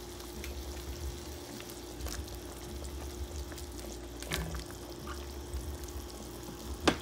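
Pot of beef kare-kare broth simmering on the stove, a steady soft bubbling with a faint hum. A few light clicks, the sharpest one near the end.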